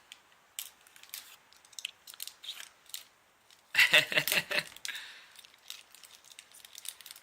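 Foil wrapper of a chocolate surprise egg being pulled open and crinkled: scattered crackles and rustles, with a louder burst of crackling about four seconds in.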